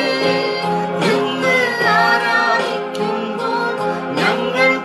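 A song: a singing voice with a wavering, held melody over sustained instrumental backing.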